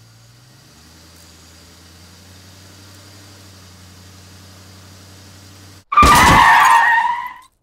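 Car's engine and road hum heard through a dash cam inside the cabin at about 20 mph, then about six seconds in a very loud crash as the 2020 Mini hits another car head-on: a harsh crunch with a ringing tone lasting about a second and a half, then the recording cuts off abruptly.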